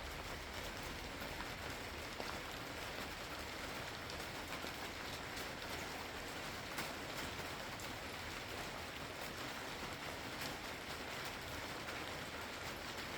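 Steady rain falling, with many close drops ticking on a hard surface; a few single drips land a little louder now and then.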